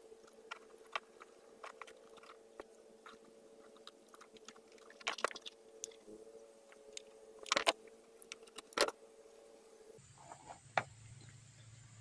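Scattered small clicks and taps of hands working rubber fuel lines and a grommet onto a small trimmer carburetor, with a few louder clicks about five, seven and nine seconds in, over a faint steady hum.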